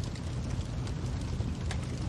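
Fire crackling: a steady low rumble with irregular sharp pops and snaps, one louder pop near the end.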